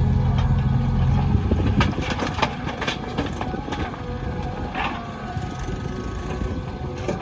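Diesel engine of heavy earthmoving machinery running, a steady low drone that turns rougher about a second and a half in, with scattered knocks and clatter over it.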